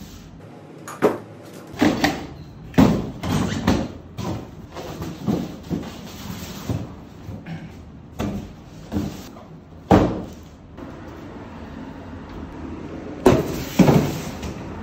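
Cardboard boxes being lifted, shifted and set down on a hard floor: a string of irregular thumps, knocks and cardboard scuffs. Near the end a glass door is handled, with two loud knocks about half a second apart.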